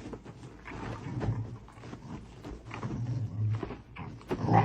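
A dog growling in several short, low bursts.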